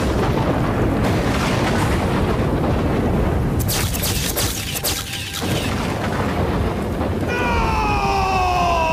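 Heavy downpour with a loud, low, continuous rumble, briefly crackling harder about four seconds in. Near the end, several sliding tones fall in pitch together as film music comes in.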